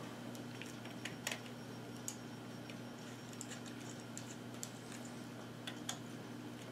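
Faint, scattered light clicks and ticks of small parts and tiny screws being handled while a portable radio's plastic case is reassembled, the sharpest pair about a second in and another pair near the end, over a steady low hum.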